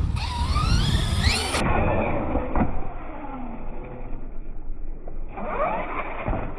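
Tekno MT-410 RC truck's electric motor whining as the truck speeds up and slows, its pitch rising and falling in the first second or so and again near the end, over a steady low wind rumble on the microphone.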